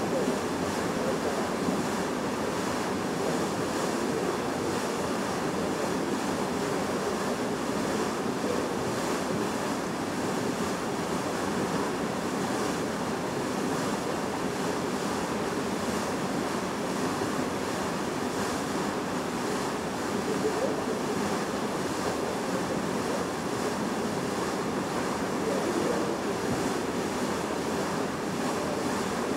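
Bow wave of a coastal passenger ship rushing and splashing against the hull as the ship steams ahead. It is a steady, even wash of water with no breaks.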